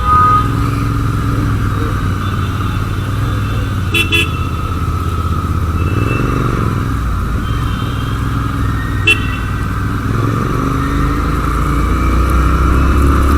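Motorcycle running at riding speed, a steady rumble with wind noise on the microphone that builds slightly near the end. Two brief sharp sounds come about four and nine seconds in, likely horn toots.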